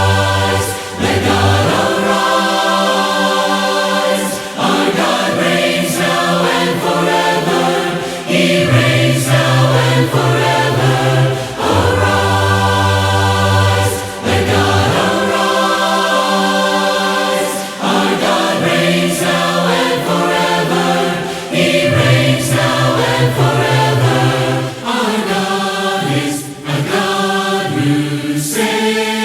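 Congregation singing a hymn together in several voice parts, unaccompanied, with phrases changing every second or two.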